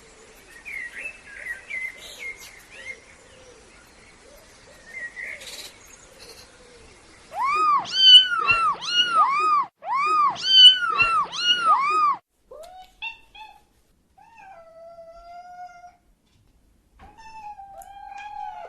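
Faint bird chirps, then a cat meowing: a loud run of quick rising-and-falling mews, about two a second, followed by a few longer, drawn-out meows.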